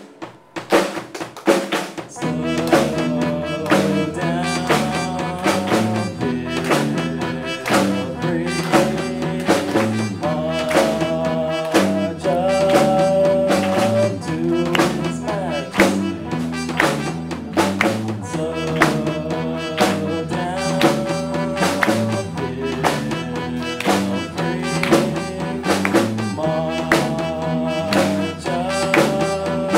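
Live rock band playing an original song on electric guitar, keyboard and drums: a few drum hits, then the full band comes in about two seconds in and plays on with a steady beat.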